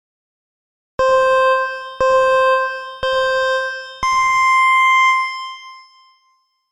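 Electronic countdown beeps: three identical beeps a second apart, then a higher, longer final beep that rings out, the 'go' signal that ends the countdown.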